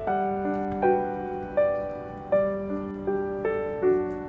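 Gentle background piano music: single notes struck at an even, unhurried pace, about one every three-quarters of a second, each ringing out and fading.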